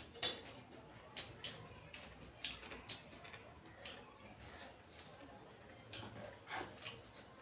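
Mouth sounds of someone eating rice and egg curry with their fingers: irregular short, wet smacks and chewing clicks, roughly one a second.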